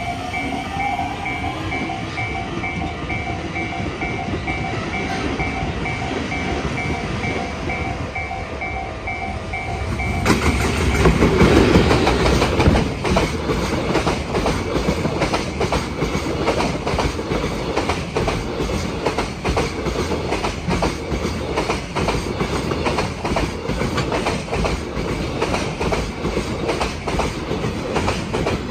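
A level-crossing warning bell rings in a steady repeating beat; about ten seconds in, a freight train arrives and passes close by. The passing is the loudest part: its wheels clatter over the rail joints in a fast, regular rhythm.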